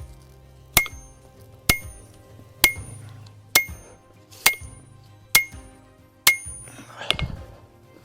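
Hand hammer striking a punch driven into hot iron to punch the eye of an axe head: seven evenly spaced ringing blows, a little under one a second, then a softer knock near the end.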